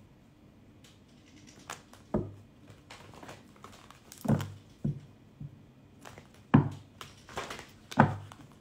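A deck of reading cards shuffled by hand. It is quiet at first, then from about two seconds in comes an irregular string of sharp taps and thumps as the cards are worked.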